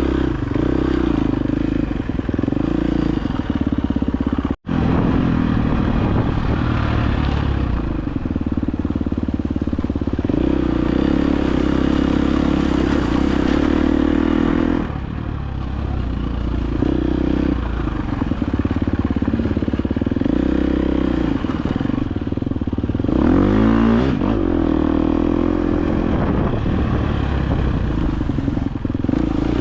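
Dirt bike engine running under way on a trail, its pitch rising and falling with the throttle, with a quick rising rev about three quarters of the way through. The sound cuts out for an instant about four and a half seconds in.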